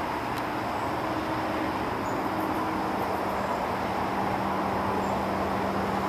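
Steady roar of distant road traffic, with a low steady hum coming in about two seconds in.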